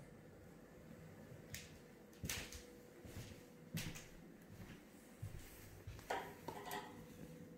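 Faint scattered clicks and knocks, then, about six seconds in, fabric vertical window-blind slats clattering against each other as a hand pushes them aside.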